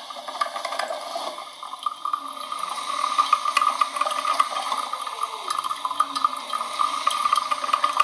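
Coffee machine running, pumping and pouring liquid with a steady, fluttering hum that grows louder over the first few seconds.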